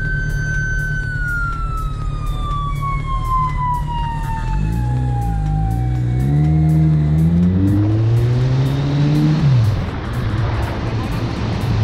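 Sport motorcycle engine accelerating through the gears: its note climbs in steps with a short dip at each upshift, then falls away as the throttle closes, with wind rush building as speed rises. Over the first half a high whine slides slowly down in pitch.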